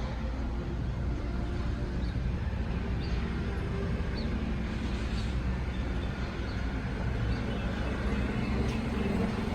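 Steady low rumble of road traffic, with a few faint high chirps or ticks.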